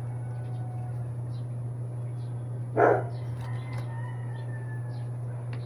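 A dog barks once, briefly and loudly, about three seconds in, over a steady low hum, with a few faint light ticks scattered around it.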